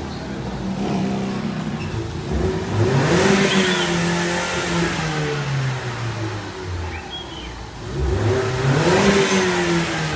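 Stock 2015–2020 Ford Mustang EcoBoost 2.3-litre turbocharged four-cylinder engine on its factory exhaust, revved twice: each rev climbs quickly and then falls back slowly.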